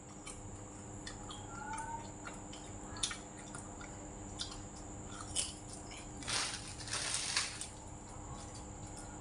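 Crunchy biting and chewing of crisp shrimp-and-scallion rice-paper rolls (bánh tráng cuộn tôm hành): sharp crunches every second or so, then a longer burst of crackling about six to seven seconds in.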